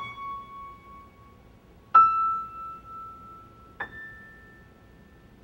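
Three high piano-like keyboard notes, struck one at a time about two seconds apart, each higher than the last and left to ring and fade; the second is the loudest. They sound the fourth, fifth and sixth harmonics of A 220 one by one.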